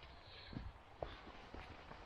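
Faint footsteps of a hiker walking on a trail: a few soft steps, about half a second apart.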